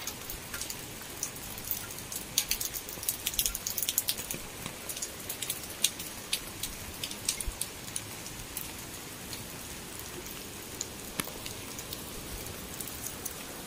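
Steady rain falling, with sharp ticks of individual drops landing close by, thickest a few seconds in and more scattered later.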